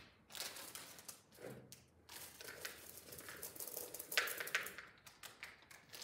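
Plastic candy wrapper crinkling as a packet of M&Ms is torn open, then the candies rattling into a plastic mixing bowl, loudest about four seconds in.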